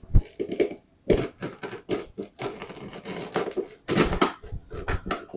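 Knife cutting down through a candy apple, the hard-crack sugar shell giving a run of irregular crackling crunches as it shatters into shards, with the crisp apple inside.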